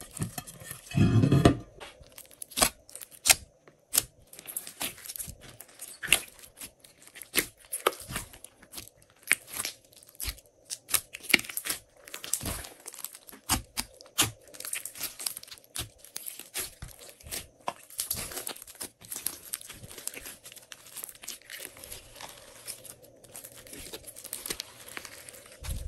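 Glossy slime being worked by hand, with a steady stream of irregular sticky clicks and pops as it is pressed, folded and pulled apart. A louder, deeper squelch comes about a second in.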